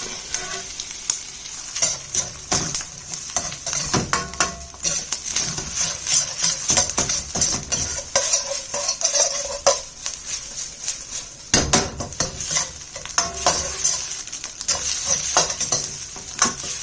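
Egg yolk frying in hot oil with garlic, ginger and onion, a steady sizzle, while a utensil stirs the pan with frequent short scrapes and clicks against it.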